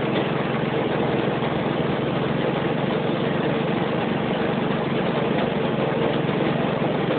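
Heavy rain pouring down on a car, a steady rush of noise heard from inside it, over the low, even running of the car's idling engine.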